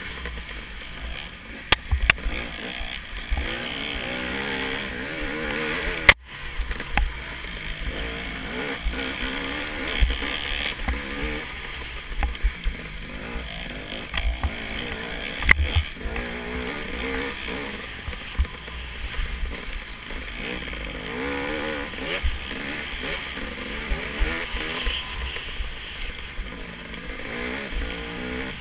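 Dirt bike engine heard from a camera mounted on the bike, its pitch rising and falling continuously with the throttle on a rough trail. Frequent sharp knocks and rattles from bumps run through it.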